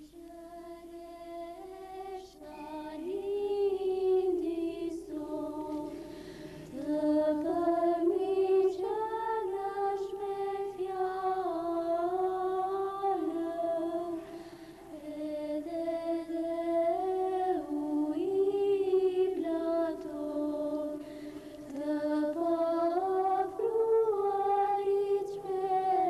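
Slow unaccompanied singing of a chant-like melody, long held notes stepping up and down.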